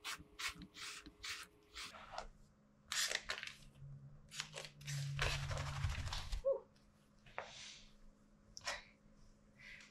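A few quick brush strokes through a Shih Tzu's long coat, then longer rasping as loose hair is pulled out of the pins of a two-sided pin-and-bristle dog brush.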